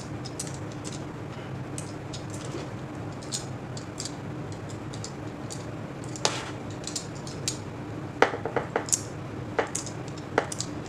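A small blade scraping the enamel insulation off copper winding wire on a toroidal transformer. Light scratching with scattered sharp metallic clicks, more of them in the second half, over a steady low hum.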